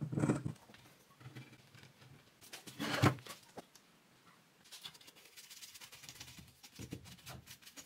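A single sharp knock about three seconds in, then light, fast scratching of a bristle brush worked into the bare-wood joint of a wooden chair.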